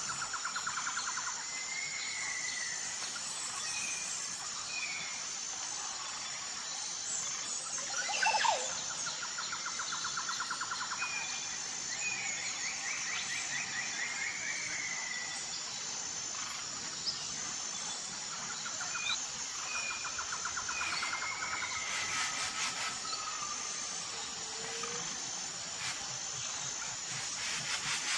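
Outdoor ambience of birds chirping and trilling over a steady high-pitched insect drone, with one brief louder call about eight seconds in.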